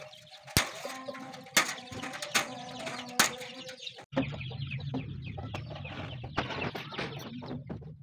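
Cutting pliers snipping through wire mesh: four sharp snips, about a second apart. About halfway through the sound changes to hens clucking over a low steady hum.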